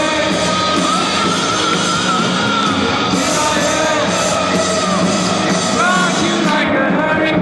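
Live rock band playing loud, with a voice singing and yelling over the music. Shortly before the end the bright top of the sound drops away.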